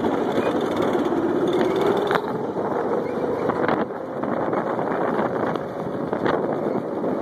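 The motor of a motorized tailwheel couch running as the couch spins in ground loops, its pitch rising over the first few seconds and then holding. A few sharp knocks come through, about two, four and six seconds in.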